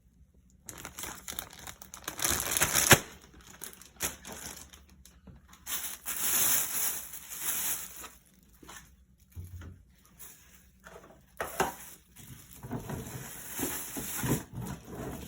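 Plastic crinkling and rustling as it is handled, in irregular bursts with short pauses.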